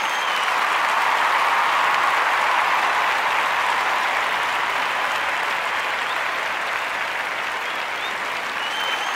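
Crowd applauding steadily, with faint whistles near the start and again near the end.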